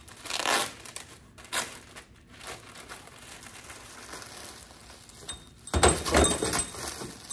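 A plastic packaging bag crinkling and rustling as it is opened and handled. The sound comes in short bursts at first and grows loudest about six seconds in.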